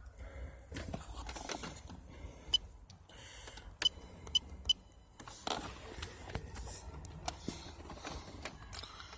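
Handheld OBD2 scan tool being worked to clear codes: button clicks and handling noise, with four short electronic beeps, three of them close together around the middle.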